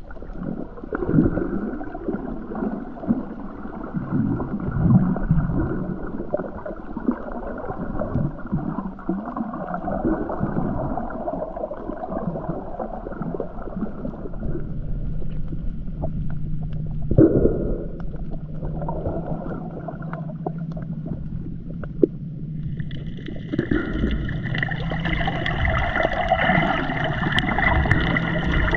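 Muffled water sloshing and gurgling around an underwater action camera while snorkeling, with occasional knocks and a low steady hum joining about halfway through. About three-quarters of the way in the sound turns brighter and splashier.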